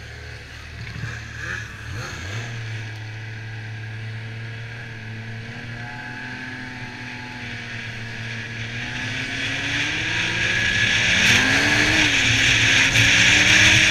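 Yamaha Viper XTX snowmobile's three-cylinder four-stroke engine running along the trail, picking up speed over the last several seconds with its pitch rising. Rushing wind noise grows louder with it.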